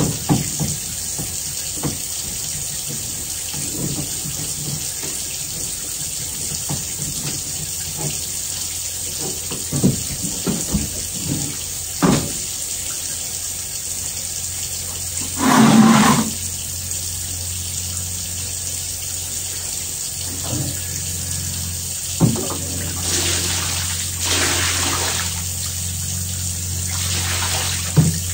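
Water running steadily at a sink during clean-up, with scattered knocks and clunks of things being handled and moved. The loudest clunk comes about halfway through, and more follow near the end.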